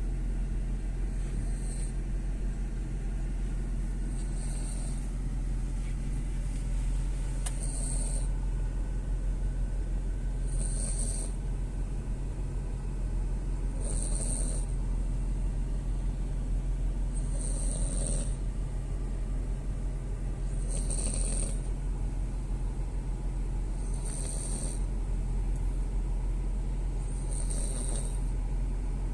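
French bulldog snoring in slow, regular breaths, one about every three seconds, each with a hissing edge. Underneath is the steady low rumble of the car it is riding in.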